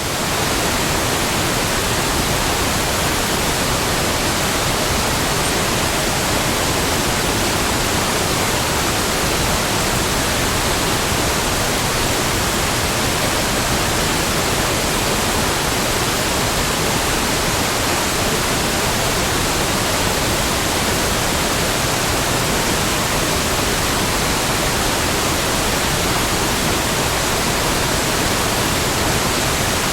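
Heavy waterfall: a loud, steady rush of falling water with no change or let-up.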